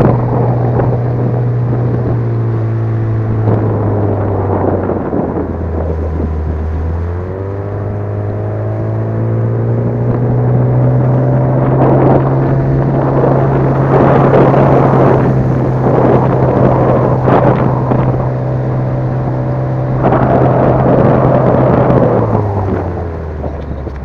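Small outboard motor driving an inflatable boat along at speed: a steady engine drone under a loud rushing noise that swells now and then. About five seconds in the engine drops to a lower speed for a couple of seconds, then rises back up, and it slows again near the end.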